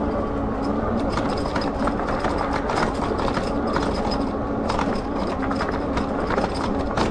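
Lectric XP electric bike rattling and clattering over a bumpy road: many quick knocks and clicks over a steady low rumble.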